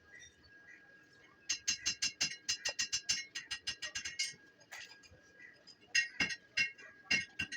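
Rapid metallic clicking and clinking, about six or seven clicks a second, that starts about one and a half seconds in. There is a short pause, then a few more clicks near the end.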